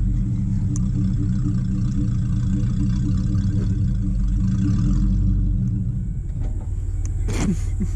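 Car engine running at low revs with a manual clutch being let out by a first-time manual driver to creep the car forward; the engine note drops and changes about six seconds in.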